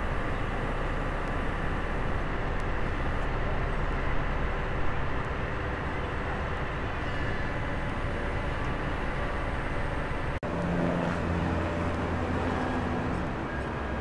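Kobelco excavator's diesel engine running steadily while it holds a precast concrete drainage box section on slings. The sound cuts out for an instant about ten seconds in, and the engine then carries on as a steadier low hum.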